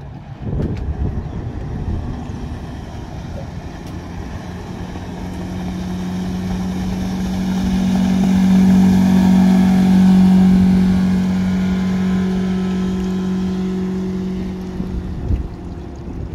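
A 2015 Cobia 201 center-console boat's single outboard motor running at speed on a pass-by: a steady engine hum that grows louder as the boat approaches, is loudest about halfway through, then fades and drops slightly in pitch as it heads away.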